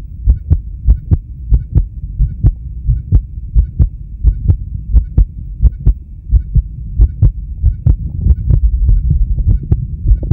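A man's heart beating in steady lub-dub pairs, a little faster than one beat a second, over a low hum.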